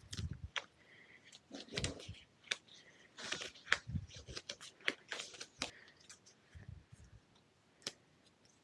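Old grip tape being peeled and torn off a bicycle handlebar: irregular crackling, rustling and ripping of the stiff layers as they come away.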